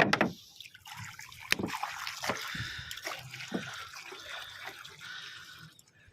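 Water being poured, trickling and splashing into a container for about five seconds, with a few small knocks, stopping just before the end.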